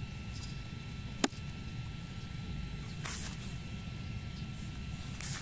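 A single sharp click about a second in, over a steady low rumble and faint steady whine, with softer rustles near three seconds and near the end.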